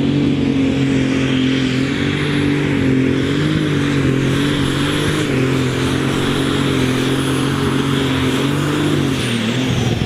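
Super Stock pulling tractor's turbocharged diesel engine running flat out under load, with a steady high turbo whistle over the engine note. About nine seconds in, the throttle comes off: the whistle falls away and the engine note drops.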